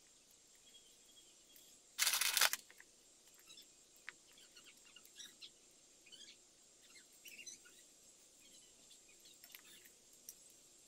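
Small plastic clicks and ticks of LEGO Technic pins and beams being pulled apart and handled, with one short, much louder clatter about two seconds in.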